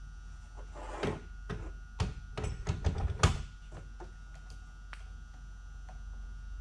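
A steady low hum with a cluster of knocks and rattles, strongest from about one to three seconds in.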